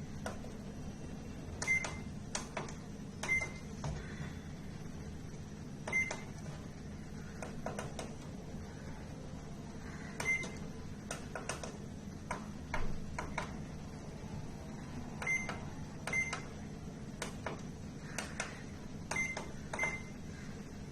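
Microwave oven's control-board buzzer giving about eight short, high beeps at irregular intervals as its newly fitted push-button keypad is pressed. Clicks of the tactile key switches fall between and with the beeps, over a low steady hum.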